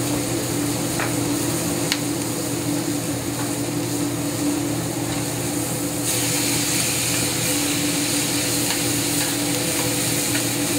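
Ribeye steak, shallots and bell peppers sizzling in a hot skillet, with a few clicks of metal tongs against the pan as the food is stirred; the sizzle grows louder about six seconds in. A steady hum from the range's vent hood fan runs underneath.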